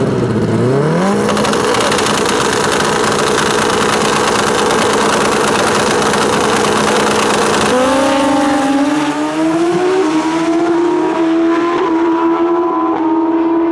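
Two Pro Street drag motorcycles' four-cylinder engines rev up quickly and hold at steady high revs on the start line. About eight seconds in they launch and accelerate away, the pitch climbing in steps with each gear shift.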